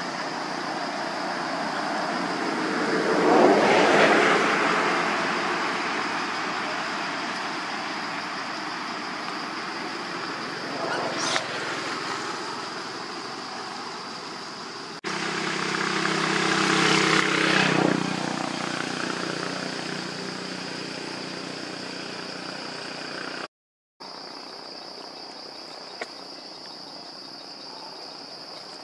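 Motor vehicles passing, each swelling and fading over a few seconds: the loudest about four seconds in and another, with a steady engine note, around the middle. A steady high insect drone runs underneath. The sound drops out briefly near the end.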